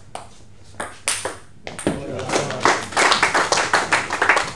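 A table tennis ball struck a few times, then spectators applauding from about two seconds in as the rally ends.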